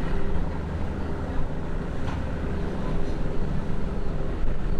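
Motorboat engine running steadily at low speed, a constant low drone, with low wind rumble on the microphone.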